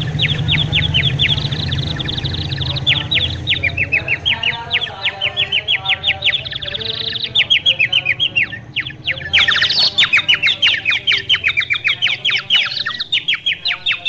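Small birds chirping rapidly and without pause: short, high, falling chirps, several a second, growing louder and denser about nine seconds in. A low hum sits under the first few seconds.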